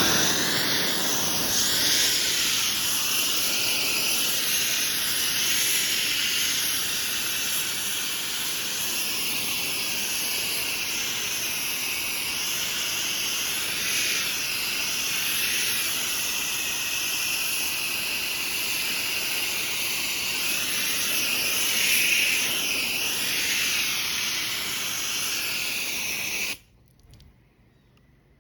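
Pressure washer spraying through an X-Jet chemical applicator nozzle, a steady loud hiss of water and chemical pre-treating stone, until the spray cuts off suddenly near the end.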